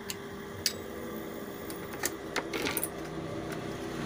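Scattered light clicks and taps from a hand handling a television's circuit board and tuner, with a short cluster of them a little past halfway.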